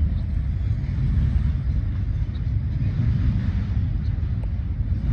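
Train running past at a distance on the tracks by the diamond: a steady low rumble.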